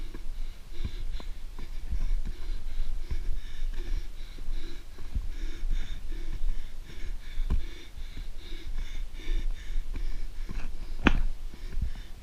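A runner's hard, rhythmic breathing while running on a dirt trail, with scattered footfall thumps and a sharp knock about eleven seconds in.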